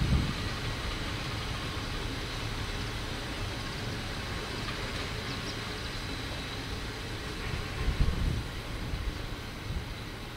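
Passenger train rolling slowly along the track, heard from on board: a steady low rumble of running gear, with short low thumps at the start and again about eight seconds in.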